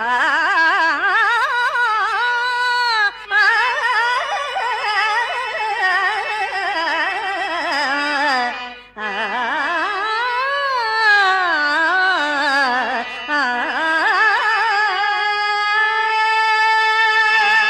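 Carnatic-style solo singing: a long wordless melodic passage with ornamented, wavering pitch that rises and falls, broken briefly twice, and settling into a held steady note near the end.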